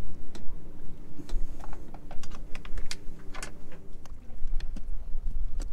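Irregular small clicks and ticks of a screwdriver and metal parts being handled while screws are driven into the Lewmar control unit's mounting, over a low rumble.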